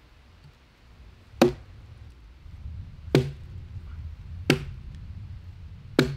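Four sharp wooden knocks about one and a half seconds apart as a log is split by hand, struck with an axe and a heavy wooden club driving the split open.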